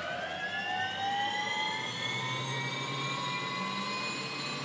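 Rolls-Royce 250 turboprop spooling up on its Hitek Cool Start starter during engine start. It makes a whine of several tones that rise in pitch and level off toward the end.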